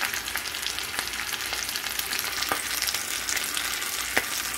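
Thick slices of homemade bacon and hash browns sizzling in bacon fat in a frying pan: a steady hiss full of small crackles, with a couple of sharper pops, one about halfway through and one near the end.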